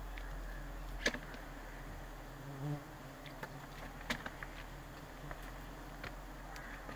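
Steady buzzing of a wild honeybee colony massed on its open comb, with a couple of sharp clicks about a second in and again around four seconds.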